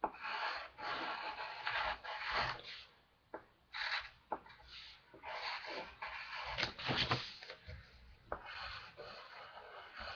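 Writing on paper: a series of short scratchy strokes, each half a second to a second long, with a few light clicks as the tip is set down and lifted.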